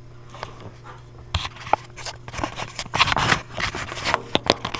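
Irregular scraping, rubbing and light clicking as hands work inside an open dryer cabinet against its sheet-metal panels and drum. It starts about a second in and comes in quick, uneven bursts.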